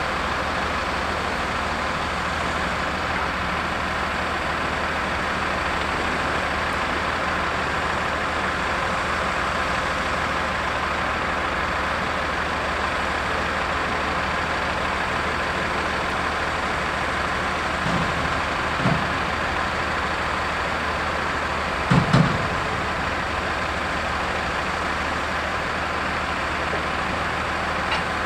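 Diesel engines of a mobile crane and a wheel loader running at a steady low drone. A couple of dull knocks come past the midpoint, then a louder double knock a few seconds later.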